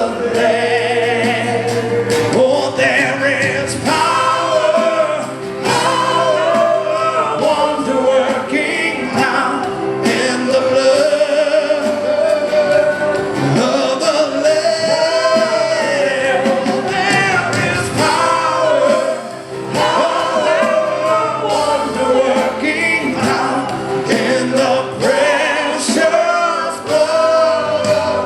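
A church worship team singing a gospel hymn with a band, voices held on long notes over steady accompaniment.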